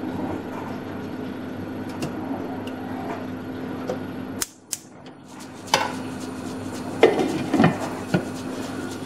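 Cookware clinking and knocking on a steamer pan: a few sharp knocks near the middle, then a cluster of clatters near the end as a glass pan lid is set on, over a steady low hum.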